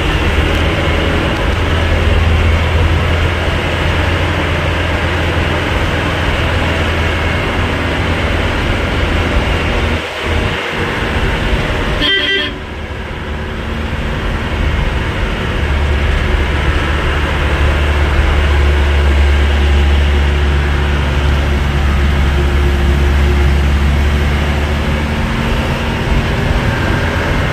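Tourist coach engine droning with road noise, heard from inside the cabin while under way, with a brief horn toot about twelve seconds in.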